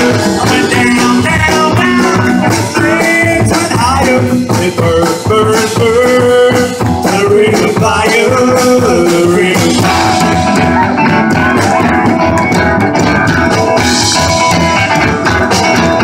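A live rock band playing a song with a steady beat. Its melody wavers in pitch, from a voice or a lead instrument.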